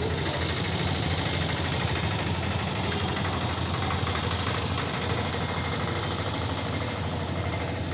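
A motor idling steadily, a low continuous rumble with no change in pace.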